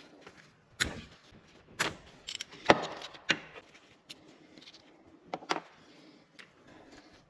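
Irregular sharp metallic clinks and knocks of hand tools working on the engine's timing-chain guide rail bolts, the loudest a little under three seconds in.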